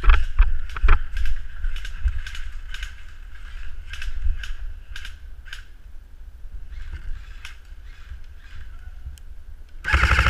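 Footsteps and scuffing through dry leaf litter during a run, dull through a waterproof camera housing, then quieter. Near the end comes a short burst of rapid full-auto fire from an airsoft electric rifle, the loudest sound.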